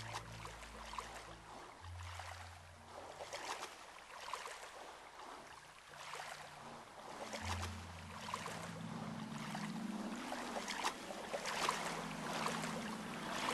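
Quiet ambient soundtrack: low held bass notes that change every few seconds, under irregular sloshing, splashing water sounds.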